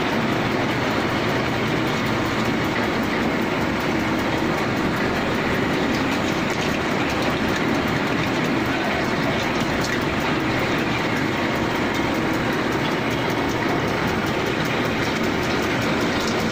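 CNC drilling machine cutting into a metal workpiece: a steady, dense grinding and rattling of the drill biting and chips breaking, with no pauses.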